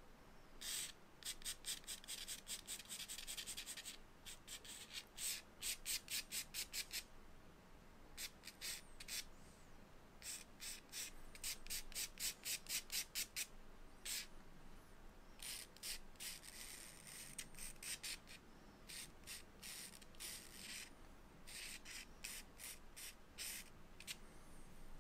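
Charcoal stick scratching across drawing paper in quick back-and-forth shading strokes, about four or five a second, in runs of one to three seconds with short pauses between.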